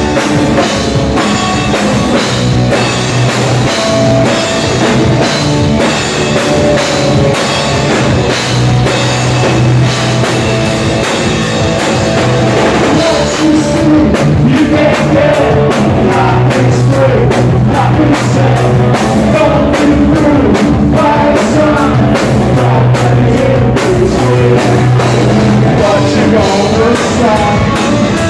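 A live punk rock band playing loud, with distorted electric guitar, bass and a drum kit, and a man singing into the microphone.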